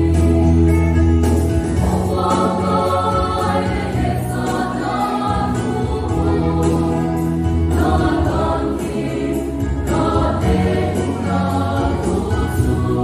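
Mixed choir of young men and women singing a church song together in long held chords.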